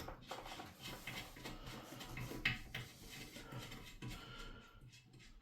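Faint handling noises of a toilet water supply line being fitted to the fill valve: light clicks and rubbing of plastic and metal parts, with one sharper click about two and a half seconds in.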